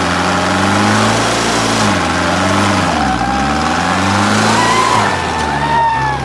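Mahindra Arjun 605 tractor's four-cylinder diesel engine revving hard while it holds the tractor up on its rear wheels in a wheelie, the revs climbing and falling about three times as the rear tyres spin in loose dirt.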